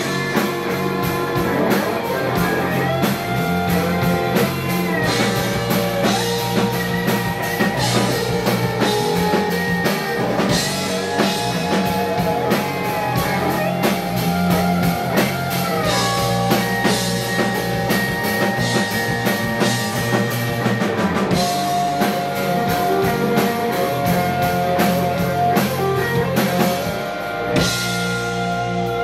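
Live rock band playing: electric guitar lines that bend and waver over bass guitar and a drum kit, with a short dip near the end.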